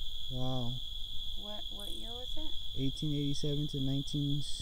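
Night-time crickets chirping in a steady, unbroken high-pitched trill, with people talking quietly under it.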